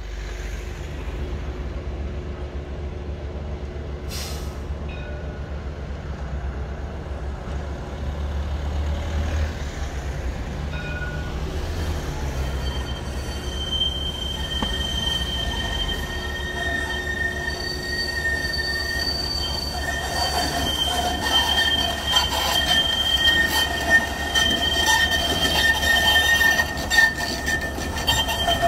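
Tram rolling on its rails with a steady low rumble. About halfway through, high steel wheel squeal sets in, several piercing tones that grow louder toward the end, with sharp clicks and knocks from the wheels on the track.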